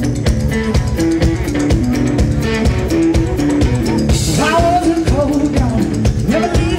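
Live rock from a guitar-and-drums duo: an electric guitar riff of held notes over a steadily hit drum kit, with a sung vocal coming in about four seconds in.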